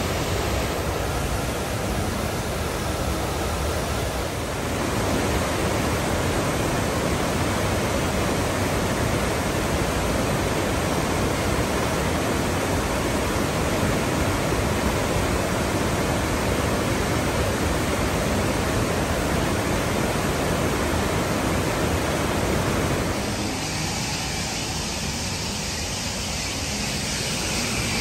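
Waterfall: a large cascade of falling water giving a steady, even rush. Near the end the rush turns thinner and hissier.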